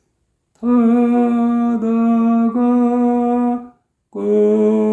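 A solo voice singing slowly, unaccompanied, with the syllables 타-다-가 held as three long, steady notes one after another, then a breath and the start of the next word 꺼지는. It is a pitch demonstration of the phrase, with 다 lowered by only a semitone.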